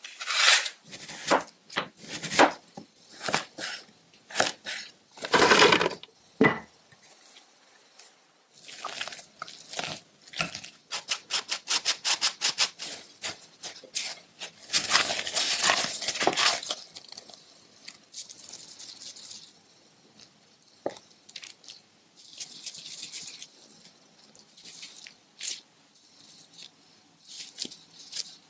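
Food-preparation sounds. First a knife scrapes the skin off a taro root in a run of separate strokes. Midway come quick, even mixing strokes and a longer scrape of taro and flour in a glass bowl. The last part is quieter, with soft handling of dough in plastic gloves.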